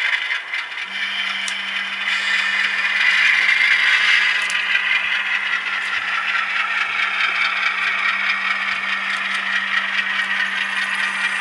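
Model diesel locomotive running slowly along the layout track: a rattling, scraping rolling sound with a steady low hum that comes in about a second in.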